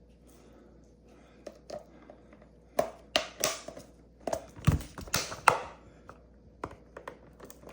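Hard plastic parts of a full-face gas mask and its filter cartridge clicking, knocking and scraping as the cartridge is handled and fitted onto the mask. Scattered light clicks, a busier run of clicks and scrapes from about three to five and a half seconds in with one heavier knock in the middle, then a few small clicks.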